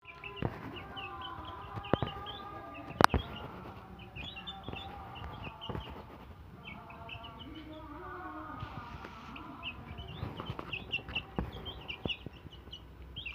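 Young chicks peeping over and over in short high chirps, with a few sharp knocks about two and three seconds in.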